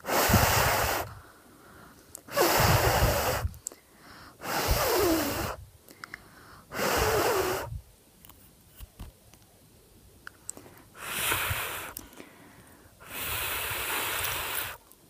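A person blowing hard on freshly painted fingernails to dry the top coat: six long puffs of breath, each about a second, with a longer pause in the middle.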